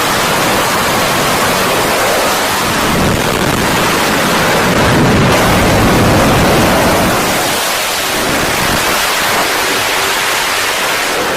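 Loud, steady rushing roar with no clear tone, swelling slightly around the middle and easing a little near the end.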